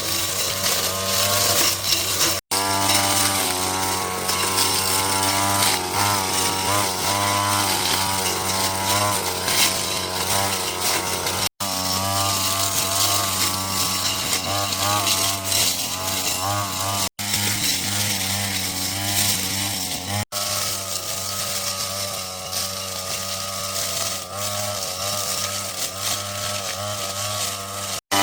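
Small petrol engine on a garden power tool running at working speed, its pitch wavering up and down as it meets load, with several abrupt breaks.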